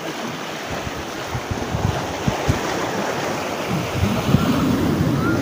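Sea waves washing and breaking over a shallow reef edge, with wind buffeting the microphone in irregular low gusts.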